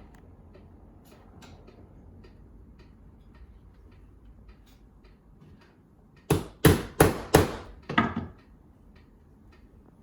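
A quick run of about five hard knocks on the wooden window parts, like hammer taps, about three a second, amid faint small clicks from working on the old window.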